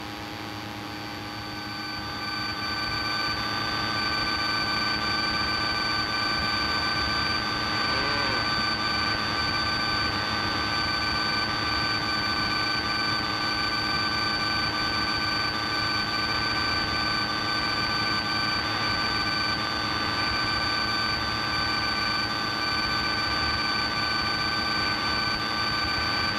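Single-engine Piper Cherokee's piston engine and propeller droning steadily in flight, heard from inside the cabin, with a few steady tones over the noise; it gets louder about two seconds in, then holds steady.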